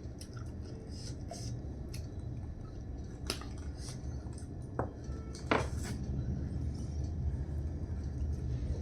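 Tableware clinking as food is eaten from a plate: a few sharp knocks, the loudest about halfway through, over a steady low hum.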